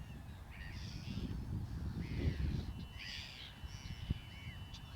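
Several crows cawing repeatedly, their calls overlapping, over a steady low rumble.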